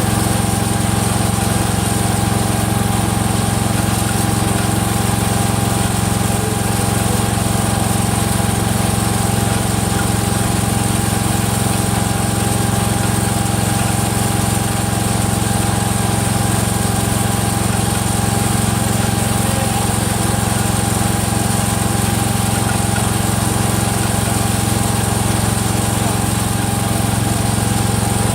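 Rebuilt single-cylinder Kohler engine of a Cub Cadet 102 garden tractor running steadily at an even speed. A clicking in the run is traced by the owner to the front pulley coming apart, not to a loose rod.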